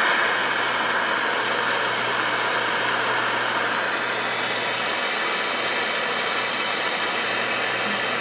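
Jeweller's gas torch burning with a steady hiss as its flame heats a silver filigree joint for soldering.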